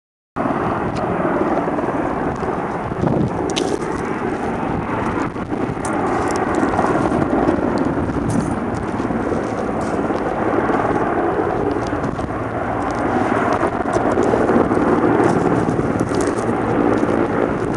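Helicopter in flight at a distance: a steady rotor and engine rumble.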